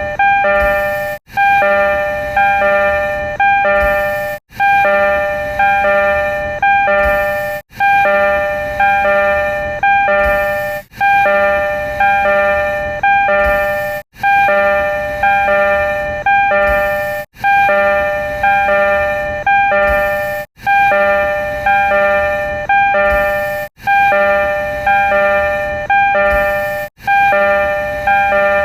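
Door chime of a refurbished Tokyo Metro 02 series subway car: a short chime of about three notes, repeated over and over about every three seconds.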